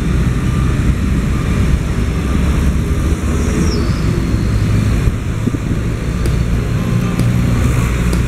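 Steady low rumble of road traffic and engines, loud and unbroken, with no distinct events standing out.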